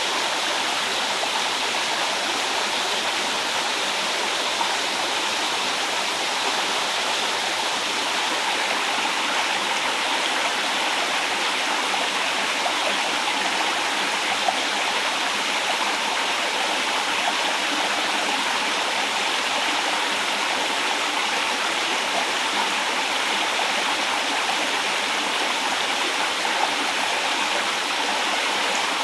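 A forest stream running: a steady, unbroken rush of flowing water.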